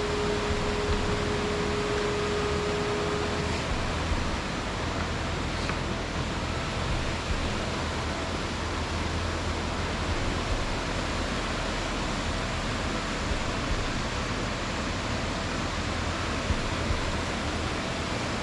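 Steady rushing of a mountain stream and its waterfalls, an even hiss that never lets up. A faint steady tone sounds over it for the first few seconds and then stops.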